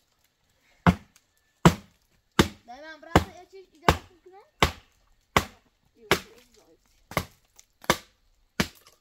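Steady chopping into a tree branch: about eleven sharp blows, evenly spaced roughly three-quarters of a second apart, with a voice talking quietly between some of them.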